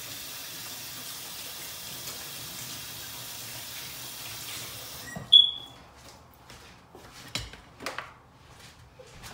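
Kitchen tap running into the sink during hand washing, shut off abruptly about five seconds in. A brief high squeak comes right after, the loudest sound, followed by a few light knocks and rustles.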